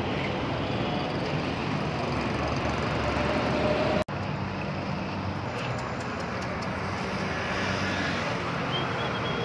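Steady outdoor street noise with road traffic, breaking off for an instant about four seconds in.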